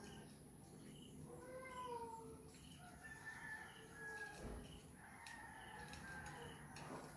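Cats meowing faintly: three drawn-out meows, the last one long and higher.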